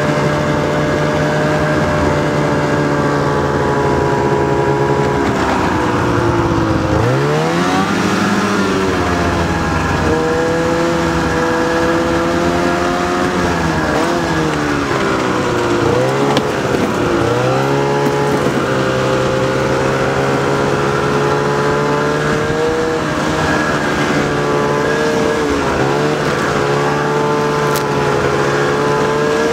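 Snowmobile engine running under way, its pitch dipping and climbing again several times as the throttle is eased off and opened up, with the deepest dip about a quarter of the way in.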